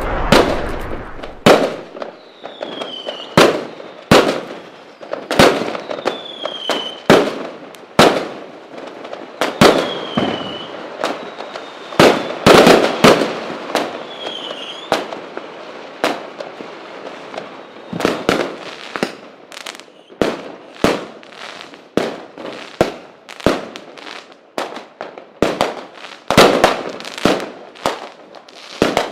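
Fireworks display: aerial shells bursting in an irregular string of sharp bangs, closer together in the second half, with a few short falling whistles between them.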